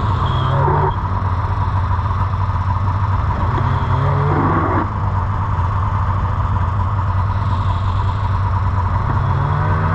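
Snowmobile engine running steadily, with the revs climbing briefly and dropping back sharply about a second in and again near the five-second mark, then climbing once more near the end.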